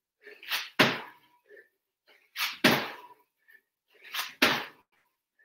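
A person doing squat jumps: a sharp, forceful breath on each spring up, then a thud as the feet land on the floor, three times about two seconds apart.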